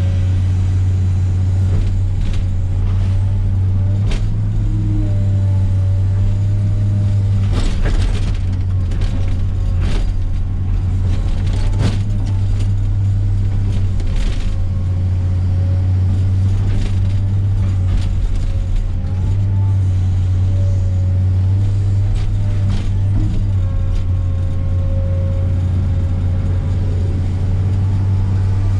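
Heavy diesel earthmoving machine running steadily under load, with a wavering hydraulic whine over the engine drone and scattered sharp cracks and knocks.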